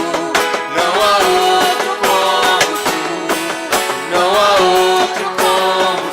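A worship band playing an instrumental passage: a gliding, wavering melody line over a steady drum beat.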